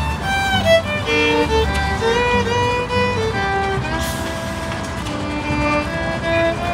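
A small acoustic string band playing live: a fiddle carries the melody over a strummed acoustic guitar and an upright bass.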